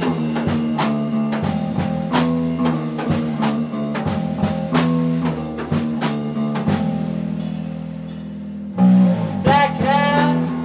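Live blues-rock band playing a passage without vocals: a drum kit keeps a steady beat under electric guitar notes. The drums drop out and the music thins for a moment, then the band comes back in loud about nine seconds in.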